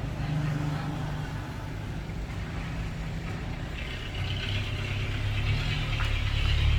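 Steady low mechanical hum, like a motor or engine idling, with a hiss that grows louder from about four seconds in.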